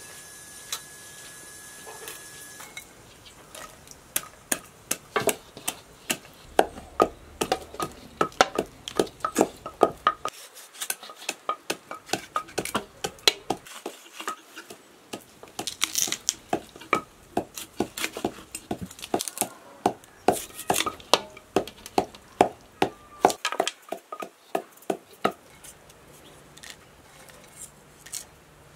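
Irregular knocks of a wooden pestle pounding walnuts in a wooden mortar, about two to three a second, mixed with the clink and scrape of a knife against a metal bowl as a plucked goose is cut.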